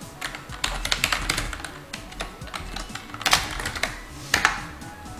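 Typing on a computer keyboard: an irregular run of key clicks, in quick clusters as a short line of text is typed.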